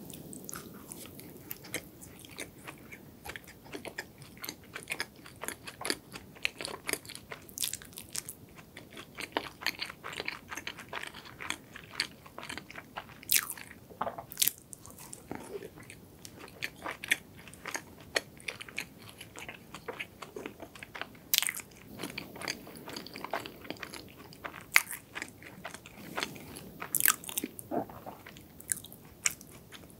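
Close-miked chewing and biting of a sugar-crusted apple cinnamon doughnut, with frequent irregular sharp mouth clicks.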